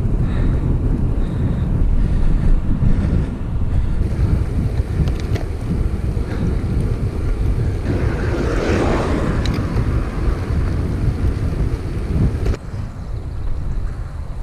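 Wind buffeting the microphone of a camera riding on a moving road bike: a steady low rumble, with a louder swell of rushing noise a little past the middle.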